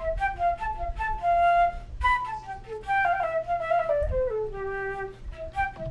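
Flute playing a quick melody of short, crisply started notes, then running down in steps to a held lower note near the end.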